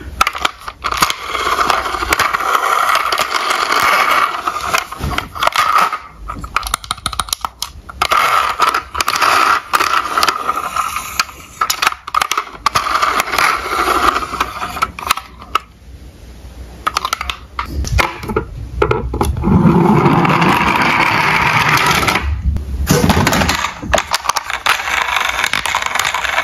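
Plastic toy police cars knocking and scraping against each other in a cardboard box as they are rummaged through and lifted out: a dense jumble of clatters and scrapes, easing off briefly past the middle.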